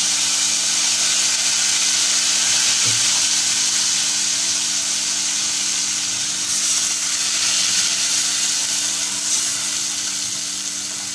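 Browned onions in hot oil in an aluminium pot sizzling hard just after a wet tomato mixture is poured in: a steady, loud frying hiss that eases slightly near the end.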